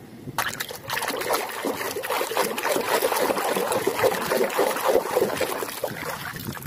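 Water splashing and sloshing in a plastic tub as a hand swishes and rubs a muddy toy snake clean under the surface. It starts about half a second in and goes on as continuous irregular splashing.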